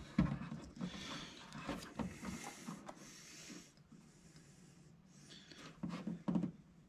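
Faint scraping and rustling of hands stripping and twisting the wire ends of a 14-2 shielded cable: a string of small scrapes for the first few seconds, then a few soft rustles near the end.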